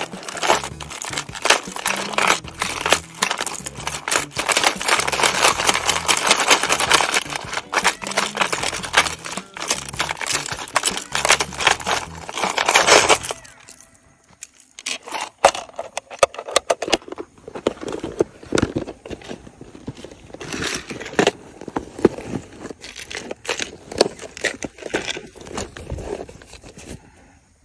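Dense crackling and rustling for about the first thirteen seconds, then scattered clicks and rustles.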